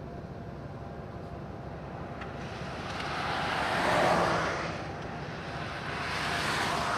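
A car passes close by on the road, its tyre and engine noise swelling to a peak about four seconds in and fading. A second, smaller swell follows near the end, over a steady background rumble.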